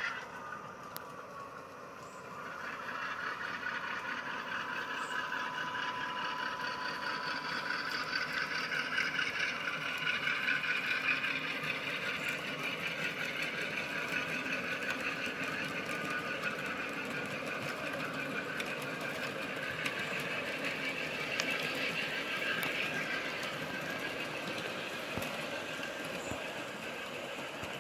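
G-scale model train running on garden track: the Aristo-Craft Dash-9 locomotive's TCS sound decoder playing diesel engine sound, with the wheels of the grain hopper cars rolling along the rails. It grows louder about two seconds in and stays steady.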